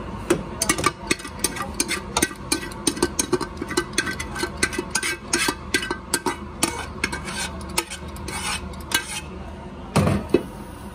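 Metal spoon scraping and clicking against the inside of a metal pressure-cooker pot, several quick strokes a second, as cooked chana dal is scraped out into a steel tray. Two heavier knocks come near the end.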